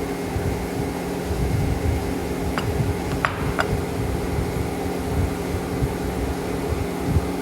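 Steady machine hum with several fixed low tones over a churning low rumble, broken by three short clicks between about two and a half and three and a half seconds in.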